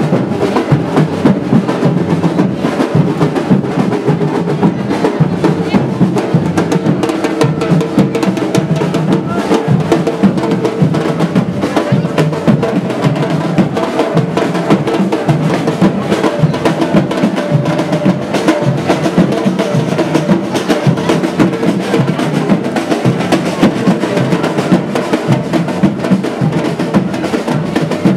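Batucada samba drum group playing many drums together in a dense, continuous rhythm, snare drums prominent.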